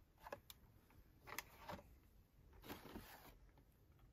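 Faint handling noise of Hot Wheels blister cards, cardboard backing with plastic bubbles: a few short rustles and clicks as the cards are picked up and turned in the hands, otherwise near silence.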